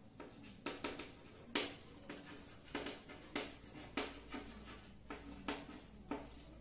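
Chalk writing on a chalkboard: a run of faint, irregular taps and short scratches as each letter is stroked out.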